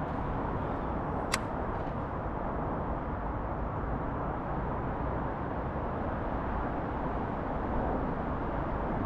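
Steady rumbling wind noise on the microphone, with a single sharp click about a second in.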